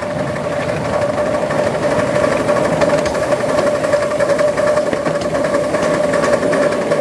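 7¼ inch gauge model steam locomotive running along the track: a steady running noise of wheels and motion on the rails, with a constant tone and rapid ticking, growing slightly louder.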